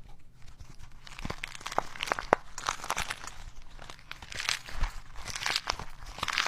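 Hands handling a fidget toy: irregular soft clicks and pops mixed with crinkling, rustling noise, busier in the second half.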